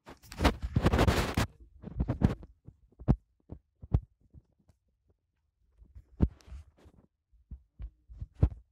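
Knife working a small fish on a banana leaf: a rough scraping burst in the first second or so, then scattered short knocks and taps as the blade strikes and scrapes.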